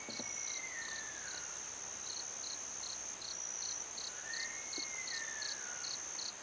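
Sika deer calling twice, each a long high whistle of about a second and a half that rises and then falls away. Crickets chirr steadily underneath, with a regular chirp about three times a second.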